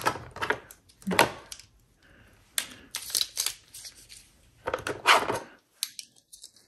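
Plastic makeup tubes and eyeliner pens clicking and clattering against each other and a plastic drawer divider as they are picked up and lifted out, in several short bursts of rattling. The sound cuts off to silence near the end.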